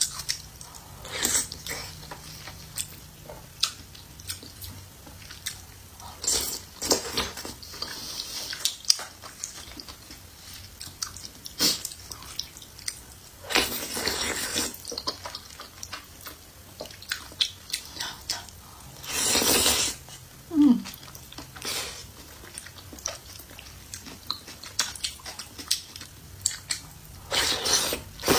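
Close-up eating sounds of a person chewing soft rice noodle rolls: wet chewing and mouth clicks throughout, with a few longer rushing sounds in between.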